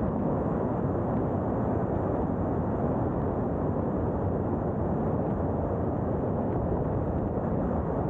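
Steady wind rush on a roof-mounted camera's microphone, over the tyre and road noise of a 2022 Subaru WRX driving at an even speed.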